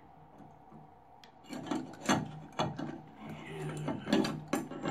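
Bathtub drain trip-lever linkage being drawn up out of the overflow pipe, the metal rod and plunger scraping and rubbing inside the pipe in a series of irregular scrapes that start about a second and a half in.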